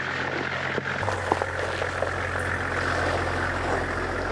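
Toyota Land Cruiser 70's engine running steadily at low revs as the truck moves slowly: a steady low hum, with a few faint clicks over it.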